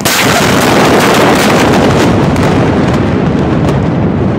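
The 2020 Beirut port explosion's blast wave reaching the phone: a sudden, very loud roar that sets in at once and goes on for seconds, with scattered sharp cracks near the end.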